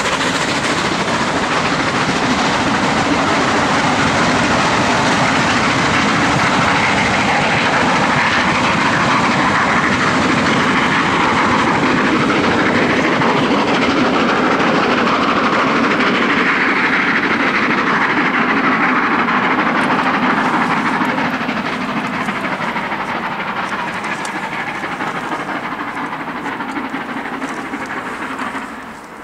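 Passenger coaches of a train hauled by the steam locomotive 46115 'Scots Guardsman' rolling past and away, with steady wheel-on-rail noise. The sound fades over the last several seconds.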